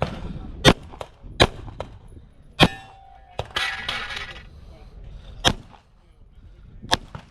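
Handgun fired in a practical-shooting stage: five sharp shots, unevenly spaced about one to three seconds apart, with a brief metallic ring after the third.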